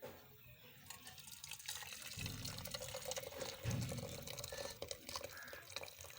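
Hot kahwa, a spiced herbal tea, being poured from the cooking pot into another vessel: a continuous splashing stream of liquid, with two dull bumps about two and four seconds in.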